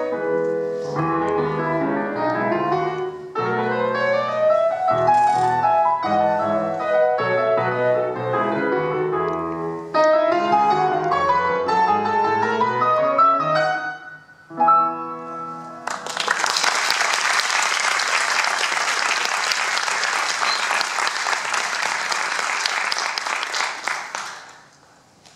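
Grand piano playing the closing bars of an Argentine folk-dance piece, ending on a few short chords about fifteen seconds in. An audience then applauds for about eight seconds.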